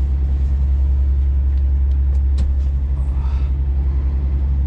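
Scania truck's diesel engine droning steadily inside the cab at low road speed, with a few faint clicks about two seconds in.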